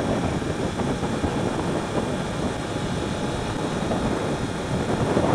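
Yamaha YZF-R1 sport bike cruising at road speed: a steady rush of wind and engine noise on the onboard camera's microphone.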